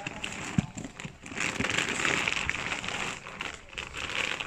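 Clear plastic bag crinkling and rustling as it is handled, with one sharp tap just over half a second in.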